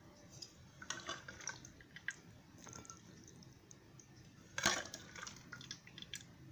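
A metal ladle serving thick rajma curry into a steel bowl: wet plops and squelches of the beans and gravy, with light scrapes and taps of the ladle on the bowl. The loudest knock comes about four and a half seconds in.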